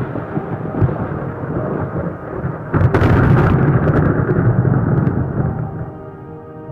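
Thunderstorm effect: rumbling thunder with rain, and a sudden loud thunderclap about three seconds in that rumbles on and dies away. Near the end, sustained ambient synth chords come up under it.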